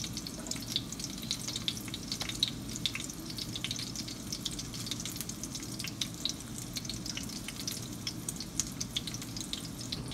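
Breaded pork cutlet (tonkatsu) shallow-frying in hot oil in a pan, sizzling steadily with many small crackles and pops.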